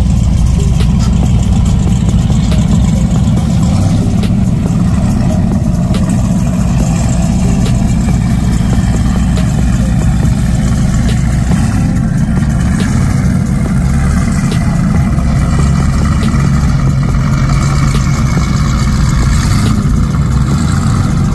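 Powerboat engines running steadily at low, idle-like throttle: a deep, even rumble.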